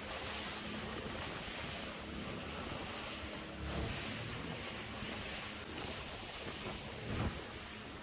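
Fishing boat running fast on open sea: wind buffeting the microphone and spray hissing off the hull over a steady engine hum. A brief thump comes about seven seconds in.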